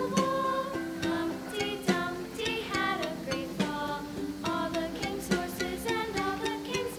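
Background music: a light tune of quick plucked-string notes.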